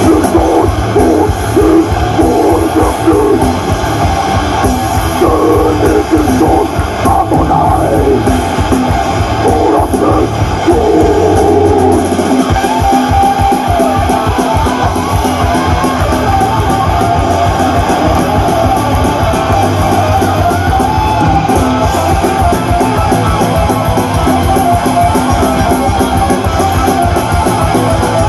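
Live heavy metal band playing loud through a PA: distorted electric guitars and drums, with a wavering lead line over roughly the first twelve seconds, then steady riffing.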